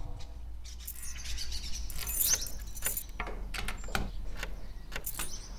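Small birds chirping: many short, sharp, high chirps and a few quick gliding notes, over a low steady rumble.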